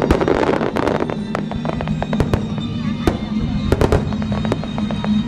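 Fireworks display: aerial shells bursting with sharp bangs, a dense run of crackling in the first second, then single reports and quick clusters of bangs through the rest.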